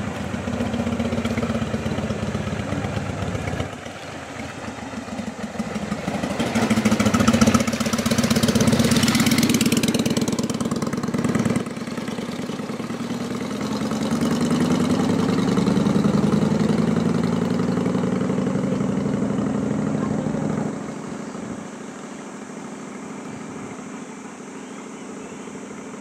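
Vehicle engines running and passing, a low hum that swells and fades several times, with a burst of hiss about eight seconds in. It drops away to a quieter background about twenty seconds in.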